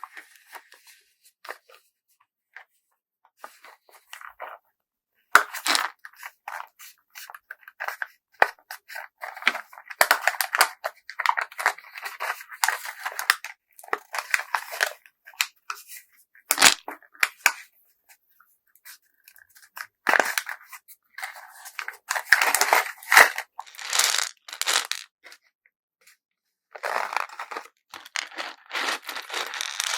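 Close-up packing work: packaging material being crinkled, folded and torn in irregular bursts, with sharp clicks in between.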